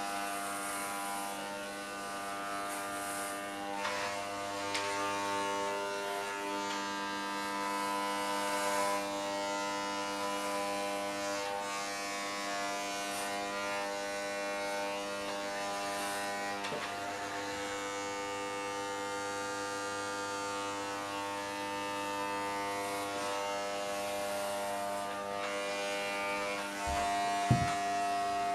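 Corded electric hair clippers buzzing steadily as they shave a man's head down to stubble, with a brief knock near the end.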